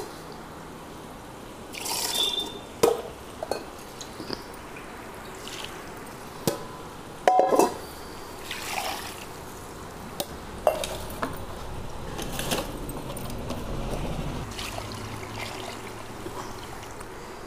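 Water poured from a mug into a steel pot of basmati rice to wash it, with steel vessels clinking now and then.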